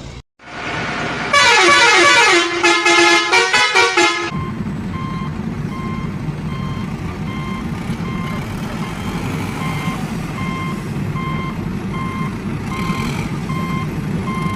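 Truck sound effects: a loud horn tune that falls in pitch for about three seconds, then a steady engine hum with regular reversing beeps.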